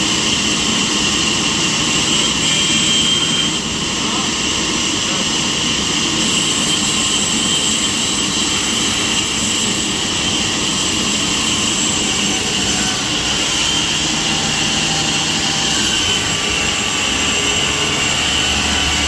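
A sawmill's large circular saw blade running steadily, a rushing machine noise with a steady high-pitched tone over it.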